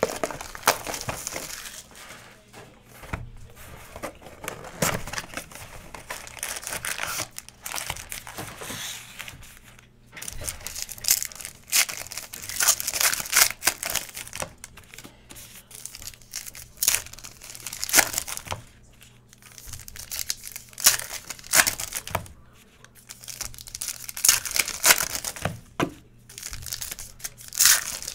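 Foil wrappers of 2019 Panini Diamond Kings baseball card packs being torn open and crumpled by hand, crinkling in repeated bursts with short pauses between packs.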